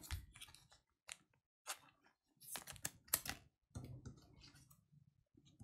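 Match Attax trading cards being handled and flicked through by hand: a scattering of faint, short clicks and taps, bunched together about two and a half to three and a half seconds in.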